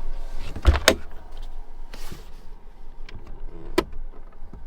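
Handling of a truck camper's door: a heavy thump with a sharp click about a second in, light knocks, and another sharp click near the end.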